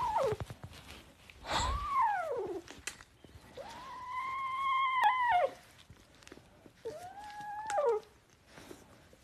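Very young kitten meowing: about four high, drawn-out cries, each rising and then falling in pitch, the longest near the middle lasting nearly two seconds.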